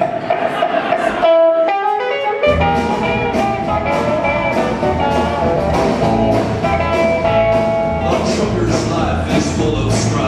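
Live country band playing a song's instrumental intro: a sustained lead melody over acoustic guitar, with upright bass and drums coming in with a steady beat about two seconds in.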